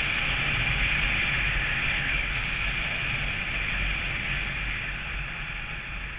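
Steady rush of wind and road noise from a moving vehicle, over a low rumble, gradually getting quieter toward the end.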